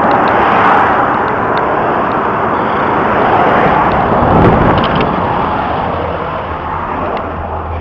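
Steady noise of road traffic, with one vehicle passing louder about four seconds in.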